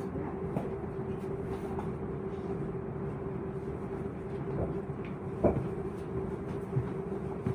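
Z50000 Francilien electric multiple unit heard from on board: a steady mid-pitched hum over a low rumble, with a few short knocks, the loudest about two-thirds of the way through.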